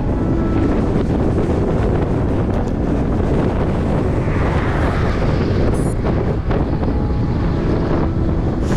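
Wind buffeting the microphone of a camera carried on a moving bicycle: a steady, loud low rumble.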